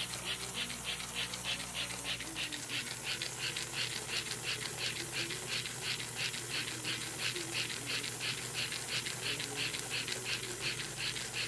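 American Flyer 350 toy steam locomotive running slowly on its track, its chugger giving an even hissing chuff about four times a second over the steady hum of its motor. The engine has just been overhauled.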